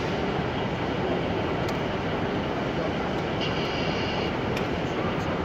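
Model train of coaches running along the layout track, under the steady din of a busy exhibition hall. A brief high-pitched tone sounds about three and a half seconds in.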